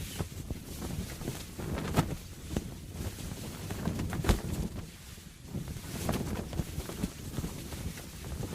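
Large canvas sail flapping and snapping in gusty wind, with irregular sharp cracks over a low wind rumble.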